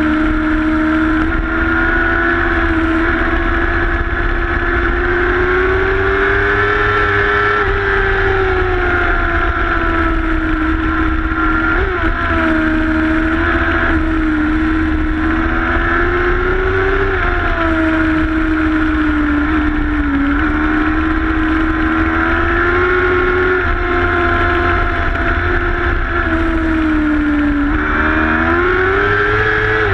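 Racing motorcycle's engine running hard at high revs, its pitch rising and falling gently with the throttle through the corners, over heavy wind rumble on the microphone. Near the end the revs climb and then fall away.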